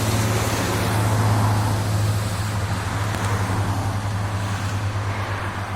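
A motor vehicle's engine running steadily: a constant low hum with a fast, even pulse under a rushing noise that swells briefly about a second in.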